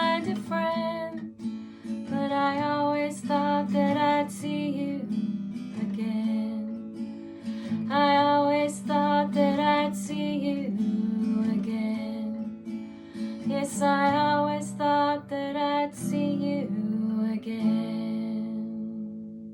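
Acoustic guitar strumming the closing chords of a song, with a woman's voice singing the melody over it. The last chord rings on and fades away near the end.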